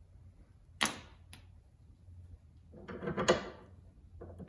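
Metal wrench clicking and clinking on a sway bar end link's nut and bolt as the link is fitted to the lower control arm: one sharp click about a second in, then a quick cluster of clicks around three seconds in, the loudest.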